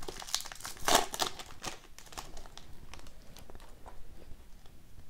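Foil wrapper of an Upper Deck Ice hockey card pack crinkling and tearing as it is ripped open, loudest about a second in, then quieter rustles and light ticks as the cards are slid out and handled.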